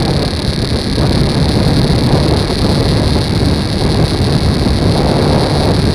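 Motorcycle engine running steadily at cruising speed, with wind noise on the microphone.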